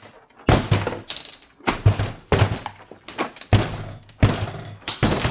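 Closed plastic blow-molded case of a DeWalt 173-piece mechanics tool set shaken hard, its chrome sockets, bits and ratchets clunking and rattling inside at about two jolts a second. This is a shake test of whether the case holds the sockets in place, and some bits and sockets shake loose from their holders.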